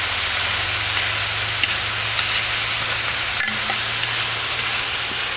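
Chicken, beans and vegetables sizzling steadily in oil on a steel saj pan over a wood fire, with a few light clicks of a metal spoon stirring against the pan.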